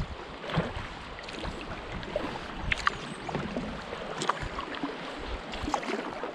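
Canoe paddle strokes pulling through river water, with a short splash about every second and a half over the steady wash of water around the moving boat.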